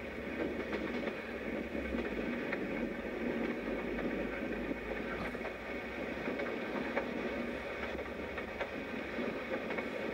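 Steady rumble of a train heard from on board, with a few faint clicks.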